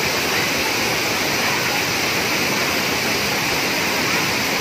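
Thirparappu waterfall: water pouring over a broad rock ledge into a shallow pool, a steady, even rush of falling water.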